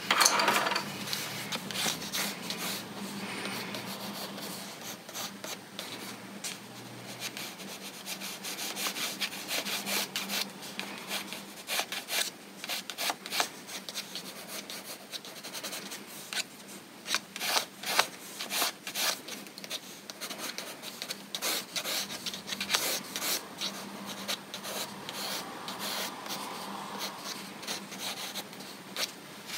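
Colored pencil scratching over sketchbook paper in many short, uneven strokes as an outline is laid in, with a louder knock near the start.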